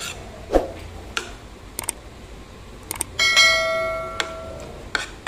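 Spoon and fork clinking and scraping on a plate a few times. About three seconds in, a bell-like chime rings for about a second and a half and fades: a subscribe-button 'ding' sound effect.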